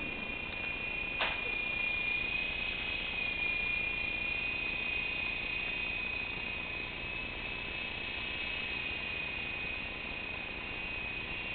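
E-flite Blade mini electric R/C helicopter hovering: a steady high-pitched whine from its motor and rotors, the pitch drifting slightly up and down. A single short click about a second in.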